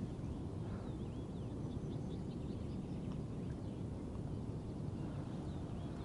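Faint birds chirping over a steady low rumble of outdoor background noise.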